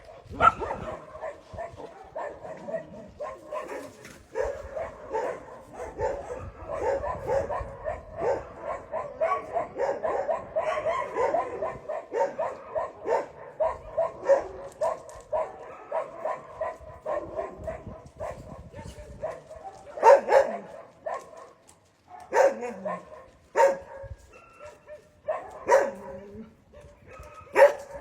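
Several dogs barking over one another in a steady stream of short barks, thinning out into a few louder single barks in the last eight seconds.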